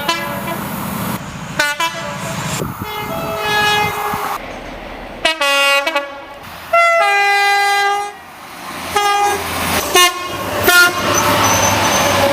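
A quick run of British train horn blasts from several different trains, one clip cut straight into the next. The two-tone horns sound high and low notes, with the noise of a running train between some of the blasts.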